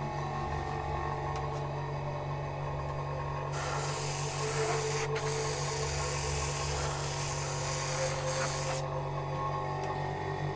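Airbrush spraying paint, an airy hiss that starts a few seconds in and stops after about five seconds, with a single sharp click in the middle. A steady low hum runs underneath throughout.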